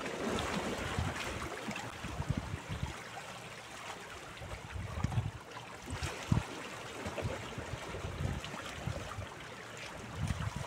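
Small sea waves lapping and splashing against shoreline rocks, an uneven watery wash with irregular low rumbles running through it.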